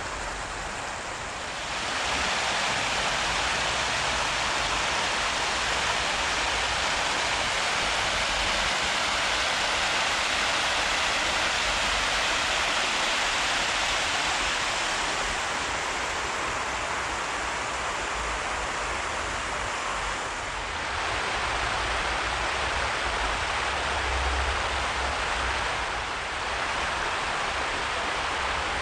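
Spring-tide water overtopping the riverbank and rushing across grass: a steady rush of flowing water, louder from about two seconds in, with brief dips in level twice in the second half.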